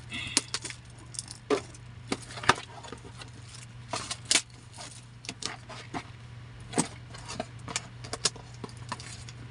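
Irregular clicks, taps and short rustles of a small package being handled and opened, over a steady low hum.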